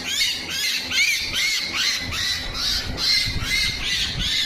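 Common myna calling, a steady run of short harsh squawks at about three or four a second, with a low rumble in the second half.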